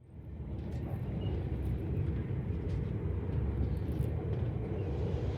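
Steady low rumble and rush of a moving passenger train, with a few faint clicks; it fades in from silence at the start.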